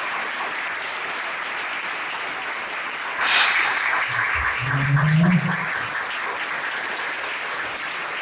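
Audience applauding steadily, with a brief louder swell about three seconds in and a man's voice heard briefly around five seconds.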